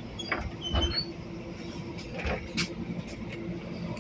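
Creaking and clunking of a MAN NL 283 city bus's door mechanism and interior fittings, with a few short knocks, over the bus's steady low hum.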